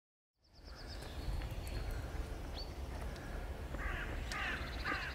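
Crows cawing, a run of harsh caws in the second half, over a low steady rumble, with a small bird's brief trill near the start and a single chirp near the middle.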